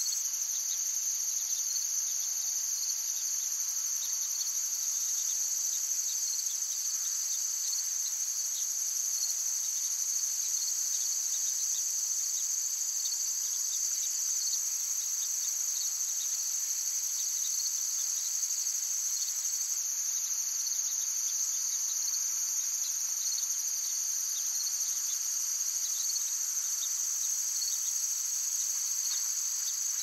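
Crickets chirring: a steady, high-pitched trill that does not let up.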